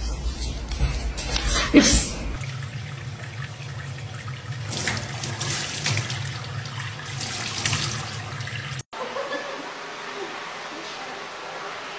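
Water from a tap running and splashing into a stainless steel sink and onto a small wet monkey, for about six seconds from about two seconds in. It comes after a short stretch of sharper knocks and voice sounds and gives way to a quieter, steady background.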